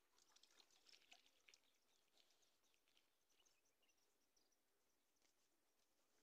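Near silence, with faint scattered high ticks and short chirps in the first two seconds that thin out afterwards.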